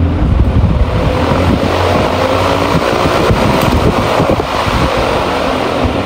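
Aloha Breeze fan running at high speed, its strong airflow buffeting the microphone as a loud, steady rushing wind noise.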